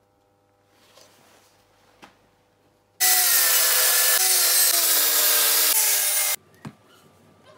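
A few faint taps of the wooden board being handled for about three seconds, then a table saw cutting into the wooden cutting board for about three seconds. Its pitch sags slightly under the load of the cut, and it stops abruptly.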